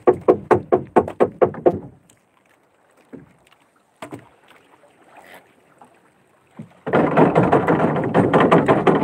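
Handling noise on a small wooden fishing boat while needlefish are worked out of a net: a quick run of sharp knocks, about four a second, then a few scattered taps, then a loud rough rustle for about two seconds near the end that cuts off suddenly.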